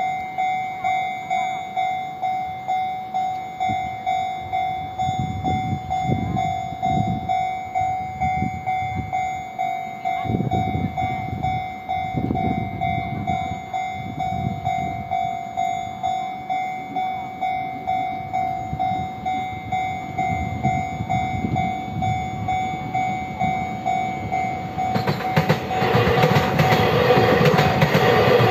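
Railroad level-crossing warning bell ringing steadily, about two dings a second. About 25 seconds in, a TRA EMU3000 electric multiple-unit train arrives and rumbles across the crossing, its rail and wheel noise rising over the bell.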